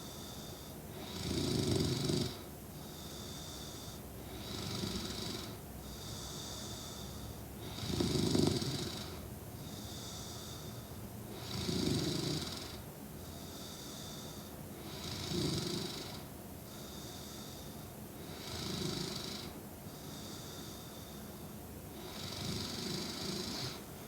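A woman snoring steadily in her sleep: a low snore about every three and a half seconds, about seven in all, with a softer breath between each.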